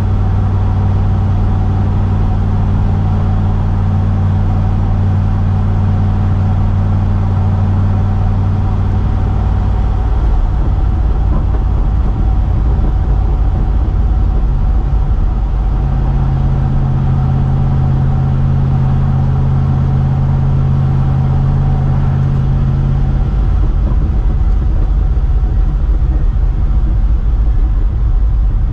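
1973 Ford F350 pickup driving steadily, its engine heard from inside the cab. The engine note steps to a different pitch a few times.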